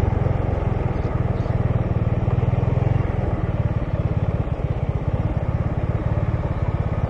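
Small Honda scooter engine running while riding slowly, with a steady low pulsing note and wind and road noise on the microphone.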